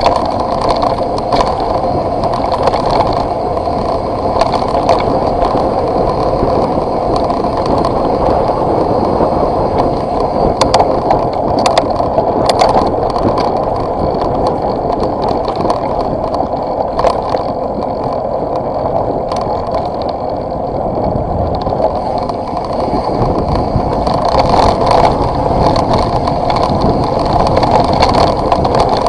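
Steady running noise of a vehicle travelling down a dirt track, a continuous rumble of tyres on the rough surface with a few sharp knocks from stones or rattles.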